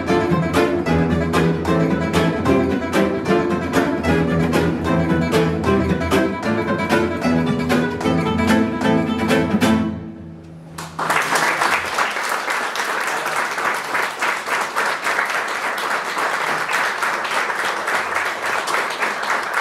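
Two nylon-string Spanish guitars, one of them a flamenco guitar with a tap plate, play a rhythmic strummed passage that ends about ten seconds in. After a second's pause an audience applauds steadily.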